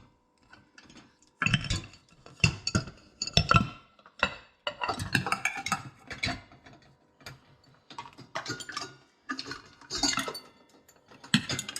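Dishes and cutlery clinking and knocking irregularly as they are set one by one into dishwasher racks, each placement a short ringing clatter.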